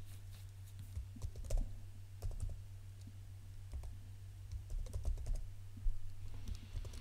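Typing on a computer keyboard: a run of irregular, quick keystroke clicks as a short word is typed in.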